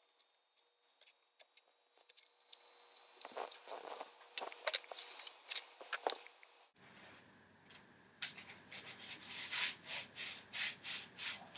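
Hands working a taped PVC pipe: rubbing and scraping on the tape and plastic, louder a few seconds in. After a sudden change in the background, a quick run of rubbing strokes near the end.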